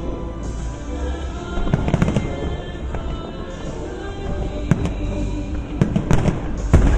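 Fireworks exploding in scattered bangs and crackles, the loudest cluster near the end, with music playing underneath.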